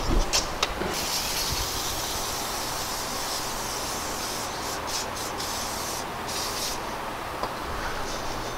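Aerosol cleaner spray hissing onto a Jeep Wrangler's bare rear wheel hub and brake parts: one long spray of a few seconds, then shorter spurts with brief pauses.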